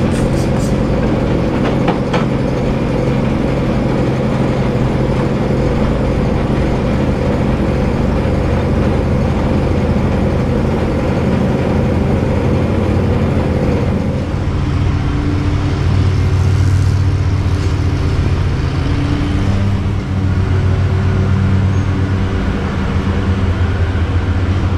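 Atlas metal lathe running steadily with a copper workpiece spinning in the chuck, its motor and drive making a loud, even hum. About halfway through the sound changes to a lower hum with a different pitch.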